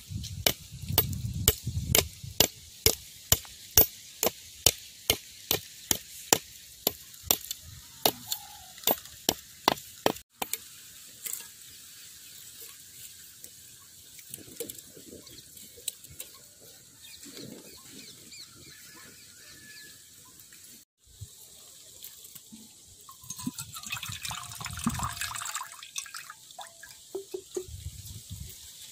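A husked coconut struck over and over with the blade of a heavy knife, sharp cracks about two a second for some ten seconds, to split the shell. Later come quieter handling and, near the end, coconut water splashing into a steel bowl.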